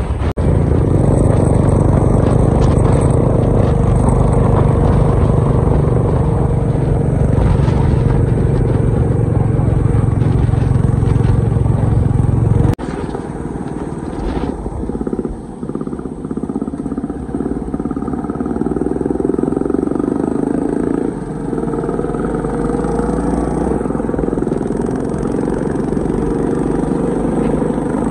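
Motorcycle engine running steadily on the move. About halfway through the sound changes abruptly and the deep low rumble drops away, then the engine runs on steadily.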